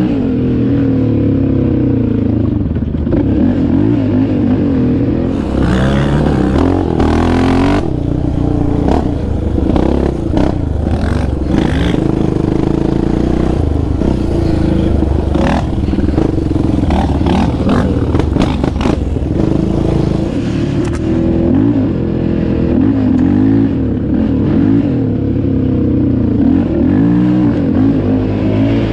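Sport quad engine running hard along a bumpy dirt trail, its pitch rising and falling with throttle and gear changes. Knocks and clatter from the rough ground come in through much of the middle.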